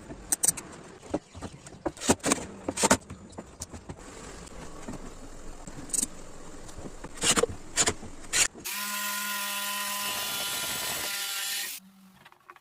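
Scattered knocks and clacks of wood being handled, then a power drill runs steadily for about three seconds before stopping.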